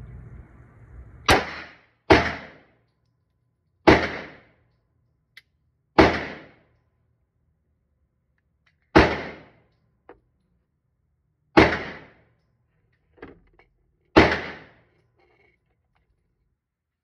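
Seven gunshots from a Glock pistol fired at an indoor range, spaced unevenly over about thirteen seconds, each ringing out briefly in the room.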